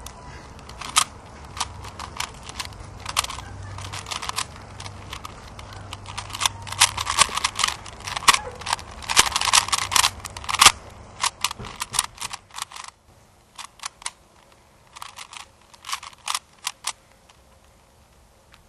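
A 3x3 Rubik's cube being speedsolved: rapid runs of plastic clicks and clacks as its layers are turned, densest in the middle. Near the end they thin out to scattered single clicks.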